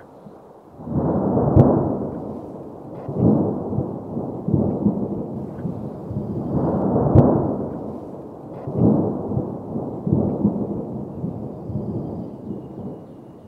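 Wind buffeting the microphone on a moving boat, a low rumbling rush that swells and fades in gusts every second or two, with two sharp knocks.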